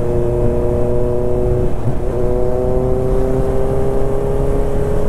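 Superbike engine running steadily under way, its pitch holding level and then rising slowly from about halfway through as it gathers speed.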